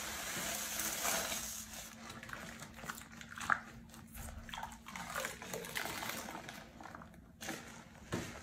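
A soapy porous bath sponge squeezed and kneaded by hand in sudsy water: irregular wet squelching and the crackle of lather. A faint steady hum runs underneath.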